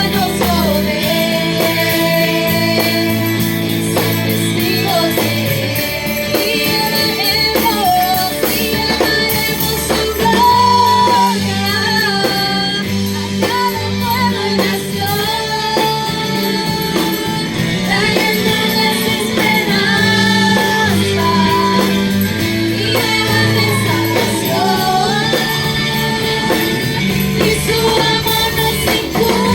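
Worship music: a singer's voice carrying a melody over a steady band accompaniment with bass and guitar.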